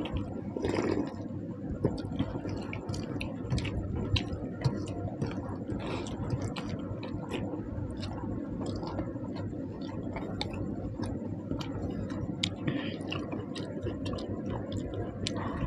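People chewing and eating panta bhat, water-soaked rice, with irregular wet smacking and squishing mouth sounds.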